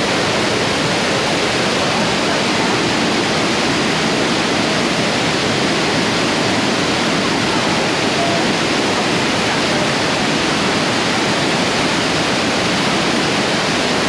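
Waterfall plunging into its pool: a steady, unbroken rush of falling water.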